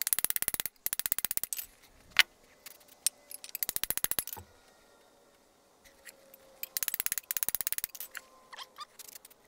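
Hand ratchet wrench clicking in three quick runs of rapid, even clicks, with a few single clicks between, as a bolt on a cast-iron mortiser head is worked loose; paint on the threads makes it stiff to back out.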